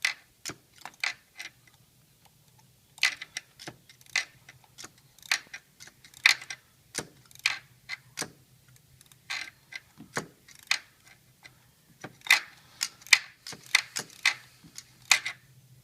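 Ratchet wrench clicking in short irregular runs while a new spark plug is turned in and tightened, over a faint steady low hum.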